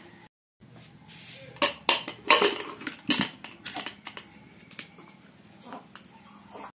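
Aluminium pressure cooker lid being fitted and closed: a cluster of metal clanks and scrapes, loudest about two to three seconds in, then a few lighter clicks.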